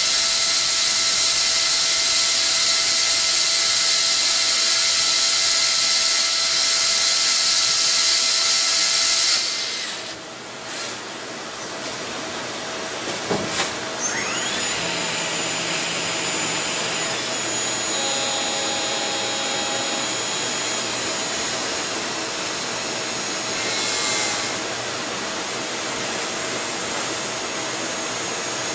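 Hardinge T42 CNC lathe running: a loud hiss with steady whines cuts off about a third of the way in. A single clack and a quickly rising whine follow, then steady high-pitched whines from the machine.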